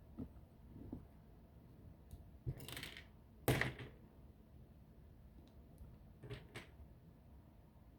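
Plastic Bionicle and Lego Technic pieces being pulled apart and handled: scattered clicks and a short rattle, the loudest click about three and a half seconds in, and two more clicks a few seconds later.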